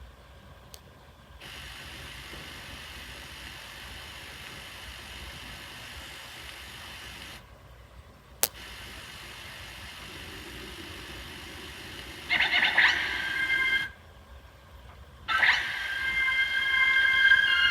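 VHS tape hiss and hum with two brief dropouts to silence and a single sharp click. About twelve seconds in, loud sustained high tones at several steady pitches begin suddenly, break off for about a second, and start again.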